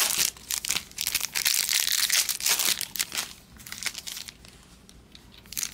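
Foil wrappers of baseball trading-card packs being crinkled and torn open. The crackling stops about three and a half seconds in, leaving only a few faint rustles.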